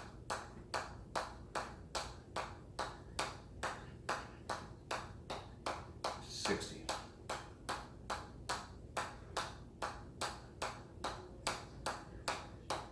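Steady run of hammer strikes with a short metallic ping, about two and a half a second, kept in an even rhythm.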